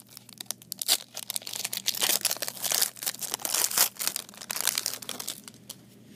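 Foil wrapper of a 1991 Fleer football card pack being torn open and crumpled by hand: dense crinkling and crackling that thins out about five and a half seconds in.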